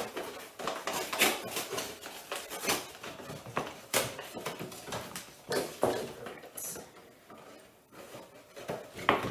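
Thin cardboard cereal box being handled and pulled open, with irregular crackles and sharp snaps, then scissors cutting through the cardboard near the end.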